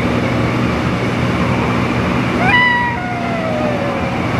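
Motorcycle engine running steadily at cruising speed, with wind and road noise inside a road tunnel. About two and a half seconds in, a high voice-like call rises and holds briefly, then a lower tone slides slowly down.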